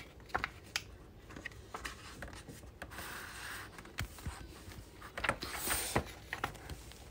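Pages of a paperback book being turned and pressed flat by hand: paper rustling and rubbing, with several light clicks and taps scattered through.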